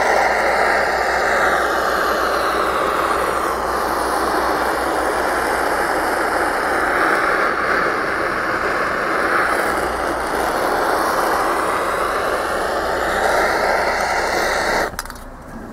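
Handheld butane cartridge torch burning with a steady hiss, heating an air-cooled VW Beetle cylinder to free it from the crankcase. The flame cuts off near the end.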